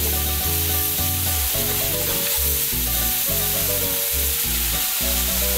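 Refrito of onion, tomato, pepper and garlic sizzling steadily in a pan as a wooden spoon stirs it, over background music with a bass line.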